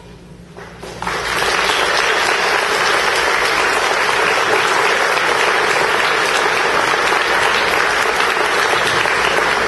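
Audience applauding, starting suddenly about a second in and holding steady and loud.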